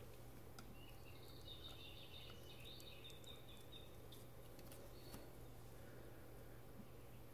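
Near silence: a steady low hum, with faint high chirping from about a second and a half in until about four seconds in, and a few faint small clicks as the tiny laser-cut parts are handled with fingers and tweezers.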